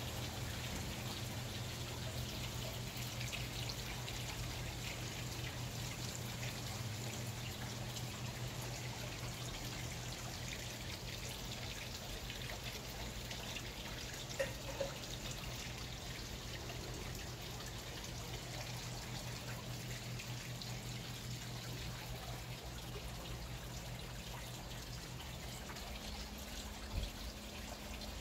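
Water trickling and dripping steadily over a steady low hum, with a brief faint knock about halfway through and another near the end.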